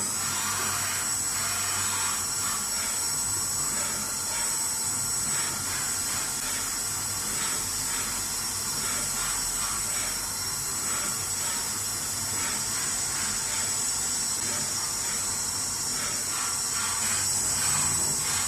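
Skyfire SVM-2 small CNC vertical machining centre running under test: a steady, high-pitched whine of several held tones over a hiss, with faint irregular ticks.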